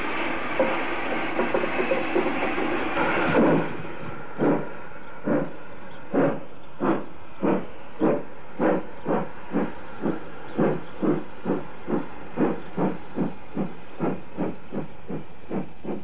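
Steam locomotive starting a train: a steady hiss of steam, then from a few seconds in, exhaust chuffs that quicken from about one a second to two or three a second as it gathers speed.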